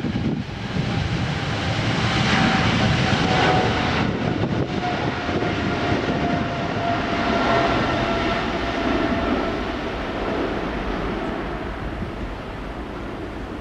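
Jet airliner's engines at takeoff power, a rushing roar with a whine that slides slowly down in pitch as the aircraft passes, easing off toward the end.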